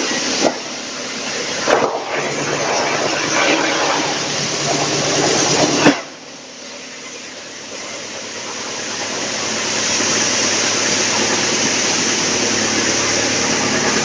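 Wood chipper running: a steady, loud hissing machine noise over a low hum, with a few sharp knocks in the first six seconds. About six seconds in the level drops suddenly, then the noise builds back up over a few seconds and holds steady.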